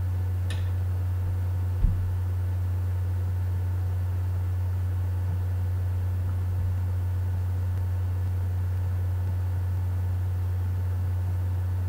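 Steady low hum in the recording, with a single short thump just before two seconds in.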